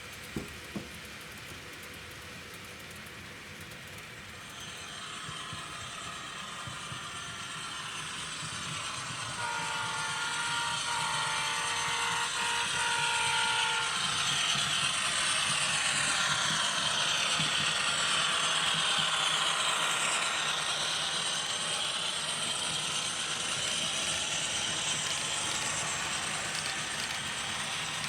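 A train running past, its sound building over the first half and easing slightly near the end, with a wash of shifting, whining tones. A steady horn-like tone sounds for about four seconds, starting about ten seconds in.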